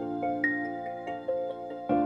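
Background music: a gentle melody of ringing notes over held chords.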